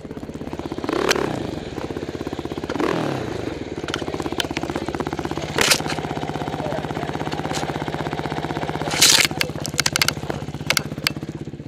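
Dirt bike engine idling with steady, even firing, briefly revved about one and three seconds in, with sharp knocks and clatters, the loudest a cluster about nine seconds in.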